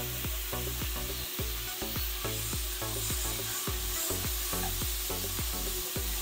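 Food sizzling in a hot wok while a metal spatula stir-fries it. The spatula knocks and scrapes against the pan several times a second over a steady hiss.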